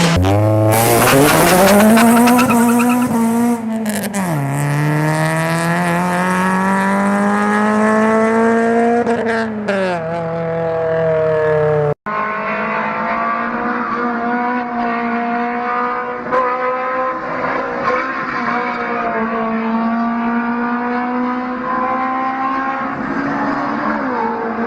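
Honda VTEC engine revving hard: the pitch climbs, drops sharply at a gear change about four seconds in, climbs again and falls off near ten seconds. Midway there is an abrupt cut to another Honda engine recording, running at steadier revs with gentle rises and falls in pitch.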